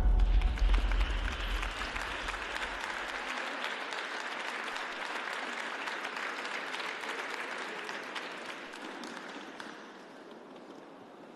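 Audience applauding as a roller skating routine ends. The last of the music dies away in the first few seconds, and the clapping slowly fades.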